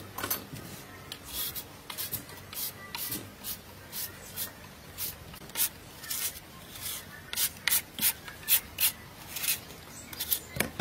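Metal vegetable peeler scraping the skin off a raw lotus root in quick, repeated short strokes, about two a second.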